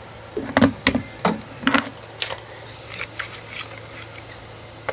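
A spoon knocking and scraping against a container of slime: several sharp clicks in the first two seconds or so, then fainter scrapes, over a steady low hum.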